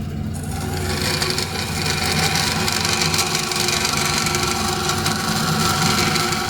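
Vertical bandsaw running, its blade starting to cut through a piece of flat metal stock less than a second in: a steady high-pitched cutting sound builds over the motor's hum and holds as the stock is fed through under firm pressure.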